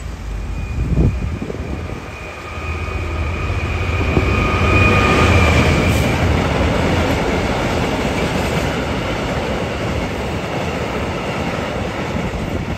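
Diesel freight locomotive passing with its engine droning, followed by the rumble and clatter of a long train of loaded covered hopper wagons rolling by. A steady high-pitched squeal runs through the first half, loudest around the middle.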